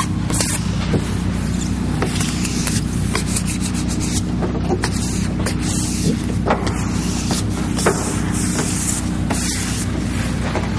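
Hands rubbing and smoothing adhesive camouflage vinyl film over a truck hood: a continuous scratchy rubbing and rustling of the sheet with many small irregular scuffs, over a steady low hum.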